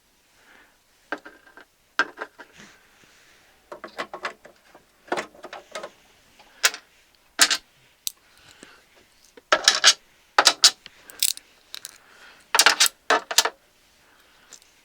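Small metal screws clicking and clinking as they are gathered up with a magnet, in scattered clusters of sharp taps with short pauses between.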